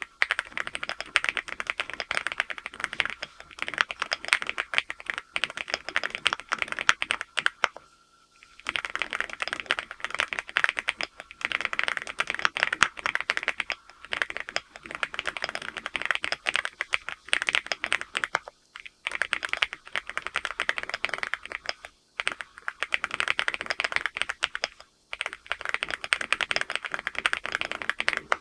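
Fast, continuous typing on a LEOBOG Hi8 full-aluminium mechanical keyboard with Graywood V4 switches: rapid key clacks with a few brief pauses, the longest about eight seconds in.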